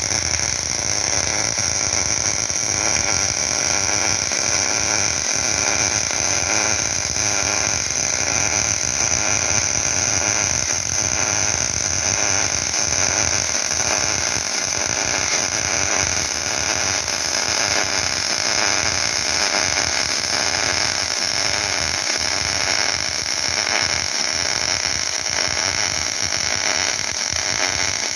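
MIG welding arc running steadily with a dense crackle, laying a horizontal weld under CO2 shielding gas.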